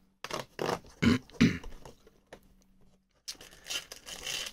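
Perforated cardboard door of an advent calendar being pressed and torn open: a few short scrapes and knocks, then near the end a steady crinkling rustle as the plastic parts bag is drawn out.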